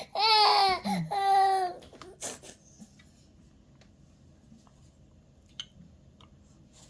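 An 11-month-old baby fussing in two high-pitched whining cries lasting about a second and a half, then a short sharp burst of noise at about two seconds in. After that only a few faint clicks.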